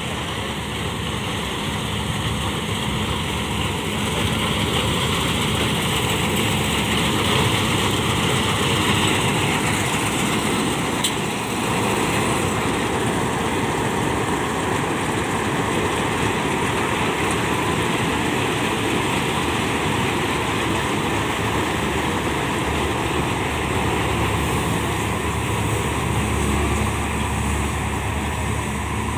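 Kuldeep 932 combine harvester running steadily under load, its engine and threshing machinery making a continuous mechanical drone while it harvests wheat.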